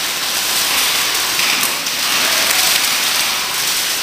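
A dense, steady patter and hiss like rain: background airsoft gunfire and BBs striking the plywood barricades.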